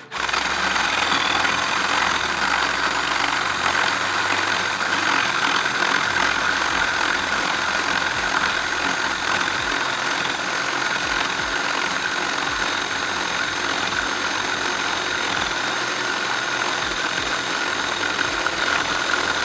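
Bauer 20V Hypermax cordless drill running steadily under load as its bit bores through wood.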